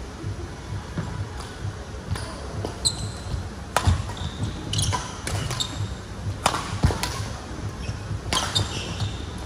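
Badminton rally: a string of sharp racket-on-shuttlecock hits, with low thuds of footwork and short shoe squeaks on the court mat.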